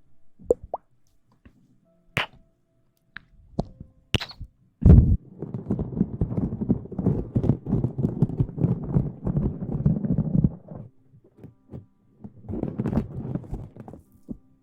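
Close-miked ASMR rustling: a few light taps and clicks, then a thump about five seconds in, followed by several seconds of dense crackling rustle that pauses briefly and starts again near the end.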